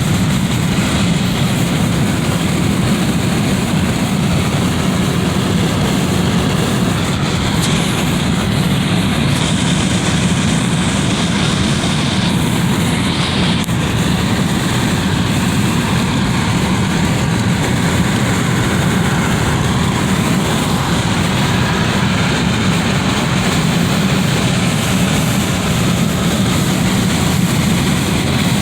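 Wind rushing through a window: a steady, even rushing noise, heaviest low down, with no gusts or breaks.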